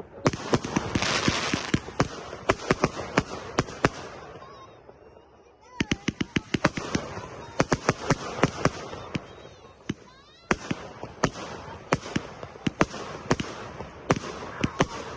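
Fireworks going off in rapid volleys of sharp bangs and crackles, in three clusters with short lulls about four and ten seconds in.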